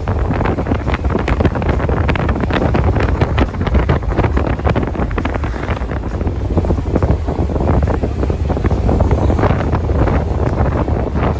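Wind buffeting the microphone of a camera carried on a moving motorbike: a loud, low rumble with gusty surges.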